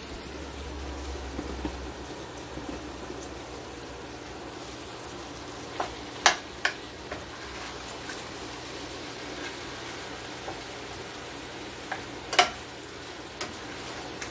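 Raw chicken pieces being laid into a hot stainless steel skillet of onions and leeks on a gas burner, the pan sizzling steadily. A few sharp taps stand out, a cluster about six seconds in and another about twelve seconds in.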